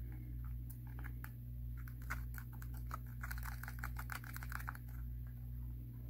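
Light, quick clicks and taps from handling a small clear plastic tub of glue paste, thickest from about three to nearly five seconds in, over a steady low hum.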